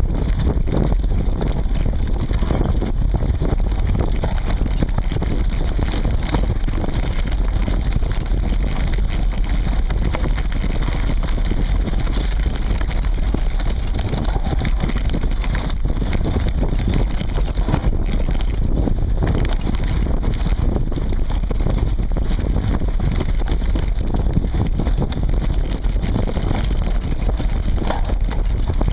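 Mountain bike riding along a woodland dirt trail, heard from a seatpost-mounted camera: a continuous low rumble of tyres on dirt with the bike rattling and knocking over bumps, and wind on the microphone.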